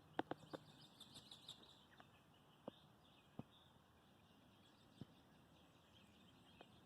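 Near silence, with faint bird chirps in the background and a few soft clicks, most of them in the first half-second.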